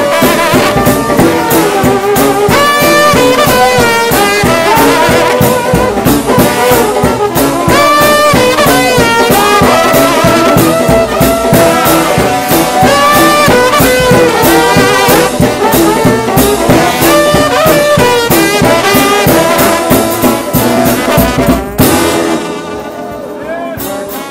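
Gospel shout band music: a trombone-led brass ensemble playing over steady drum beats. Near the end it stops on a final hit and a fading held chord.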